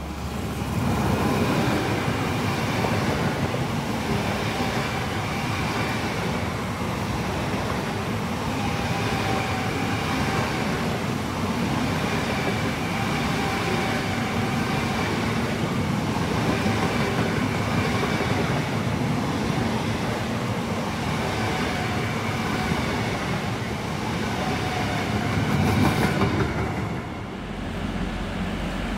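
Two coupled Eurostar Siemens Velaro e320 high-speed trainsets passing through the station without stopping. Wheels on rails make a steady rush with clickety-clack, and a faint whine swells and fades every couple of seconds. The sound peaks briefly and then drops away near the end.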